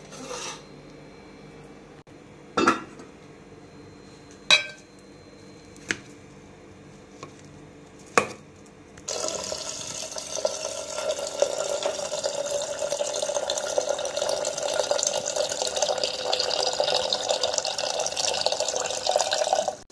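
A few clanks of metal pots, then from about nine seconds in a steady stream of water pouring from a purifier tap into an aluminium pot of cooked rice, which stops abruptly near the end.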